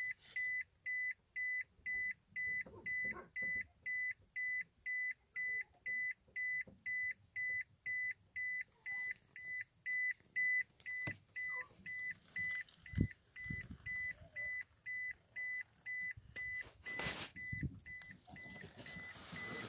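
A car's warning chime beeping steadily, one high tone about two and a half times a second. A single knock comes about thirteen seconds in and a brief rush of noise near the end.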